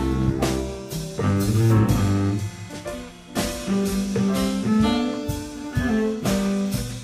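Small jazz group playing a slow blues live, with guitar and drum kit to the fore.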